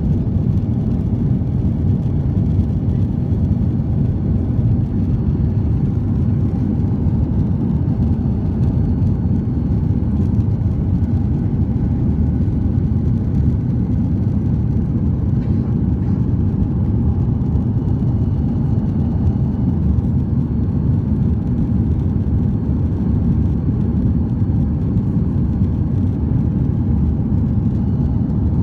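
Cabin noise of a Boeing 737-800 climbing after takeoff: the steady, deep sound of its CFM56 turbofan engines and rushing airflow, heard from inside the cabin.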